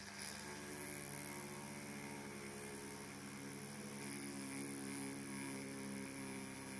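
Small electric drill running steadily and faintly as a blunted, worn drill bit bores through a broken steel screw stuck in a watch bezel's plug hole; it starts up right at the beginning.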